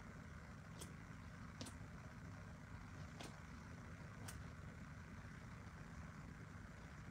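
Quiet room tone: a low steady hum with four faint sharp clicks spread through the first half.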